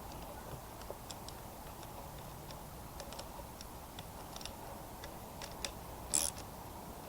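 Scattered light clicks and ticks of a socket and spanner working the pivot nut on a pair of garden loppers, with one louder clatter about six seconds in.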